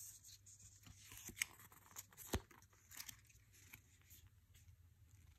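Faint rustling of the paper pages of a small booklet being leafed through by hand, with a few soft paper clicks, one sharper click a little past two seconds in.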